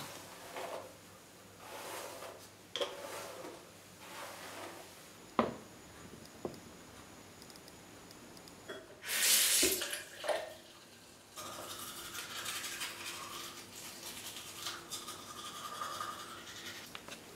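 Teeth being brushed with a toothbrush: a steady scratchy scrubbing sound through the last six seconds. Before it come a few short knocks and clatters, and a loud hissing rush of about a second some nine seconds in.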